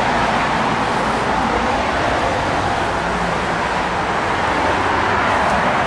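Steady, loud rushing background noise with no distinct events.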